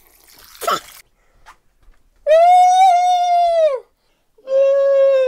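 A man's voice sped up to a squeaky high pitch, holding two long wordless notes: the first about a second and a half long, dipping at its end, the second shorter and lower. A short breathy sound comes just before them.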